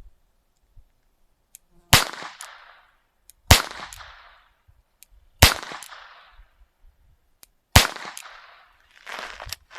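Four single shots from a .22 LR Alfa Proj revolver fired double-action, spaced about two seconds apart, each a sharp crack with a short echoing tail.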